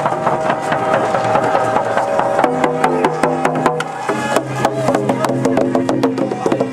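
Hand-held frame drums with hide heads beaten in a steady rhythm, with a group of voices singing along from about the middle.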